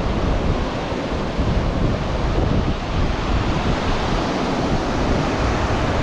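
Pacific Ocean surf washing onto the beach in a steady rush, with wind buffeting the microphone and adding a low rumble.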